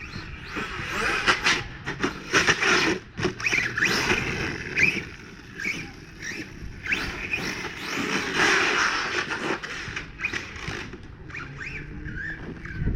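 Electric RC car on a 6S battery being driven hard through long grass: its brushless motor whines up and down in pitch as it speeds up and slows, over the rushing hiss of the tyres and chassis through the grass, with scattered sharp knocks.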